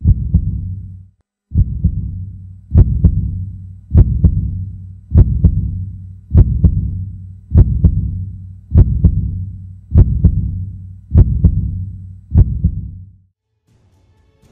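Heartbeat sound effect: a deep double thump repeating slowly and evenly, about once every 1.2 seconds, stopping near the end.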